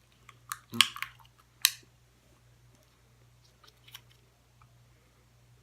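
Mouth sounds of someone eating a small piece of chocolate: a few sharp clicks and smacks in the first two seconds, then fainter ones around four seconds in.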